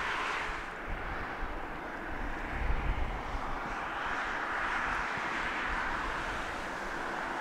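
Jet engines of an Emirates Airbus A380 taxiing, heard at a distance as a steady rushing hum that swells slightly now and then.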